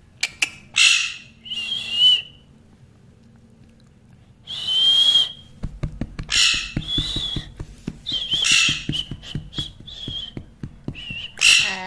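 Pet parrot giving a string of short shrill, whistle-like squawks, about nine calls with pauses between them. Fast faint ticking runs underneath from about halfway.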